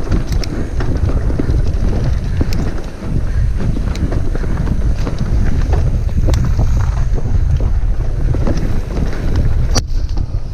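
Wind buffeting an action camera's microphone as a mountain bike rides fast down a dirt trail: a heavy, steady rumble of wind and tyres on dirt, with scattered clicks and rattles from the bike and trail, and one sharp click near the end.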